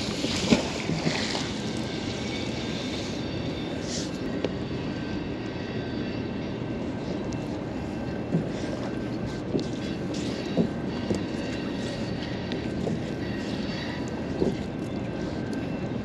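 Steady drone of a boat motor running, with a few light knocks and splashes from the wet magnet rope being hauled in.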